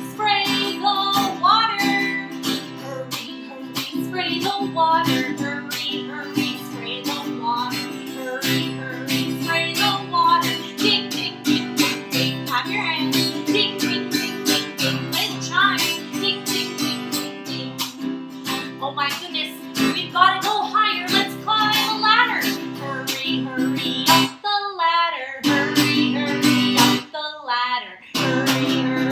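A woman singing a children's song while strumming a steady rhythm on an acoustic guitar. About halfway through she sings a fire-bell line of five "ding"s.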